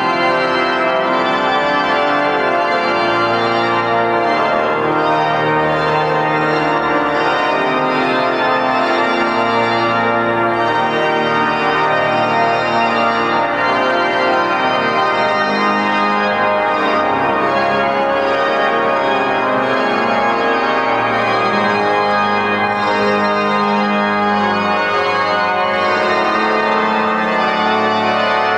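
Pipe organ playing, with sustained chords over slowly moving held bass notes.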